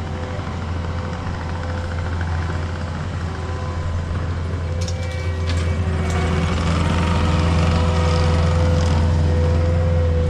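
Engine running steadily with a deep hum, growing louder about six seconds in, with a few light clicks partway through.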